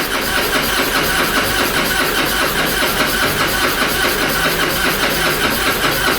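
Harley-Davidson Softail 1450 Twin Cam V-twin being turned over on its electric starter with the spark plug wires unplugged, so it cranks steadily without firing. The steady, evenly pulsing cranking pumps fresh oil through the engine to push the old oil out of the disconnected return line.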